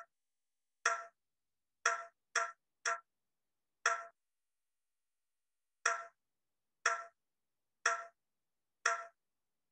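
Sampled tom-drum hits played back by SuperCollider in a repeating rhythm at about one beat a second: two single beats, two quick hits half a beat apart, a beat, then a two-beat gap before the pattern starts again. Each hit is short and sharp with a brief decay.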